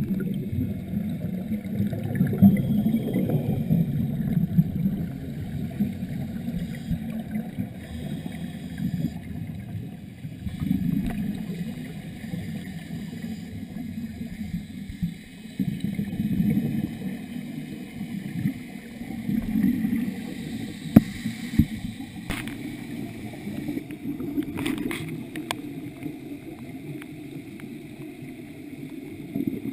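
Scuba regulator exhaust bubbles gurgling in bursts every few seconds as a diver breathes out, heard muffled underwater through a camera housing. A sharp tick about two-thirds of the way through.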